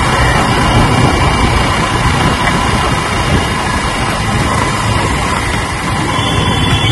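Yamaha R15 motorcycle on the move over a wet road: a steady rush of wind and tyre noise over the running single-cylinder engine.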